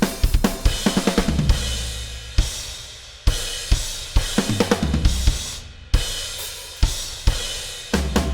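A drum kit played on its own, with no other instruments, in a heavy metal chorus. A quick run of hits fills the first second and a half, then single crash cymbal accents about every second or so are left ringing and fading between strikes.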